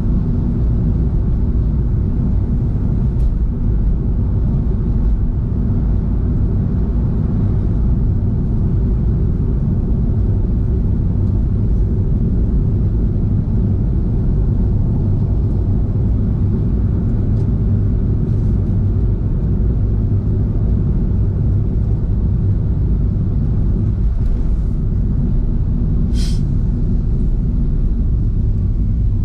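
Car driving at a steady pace: a continuous low rumble of road and engine noise. A single brief, high, sharp sound cuts through near the end.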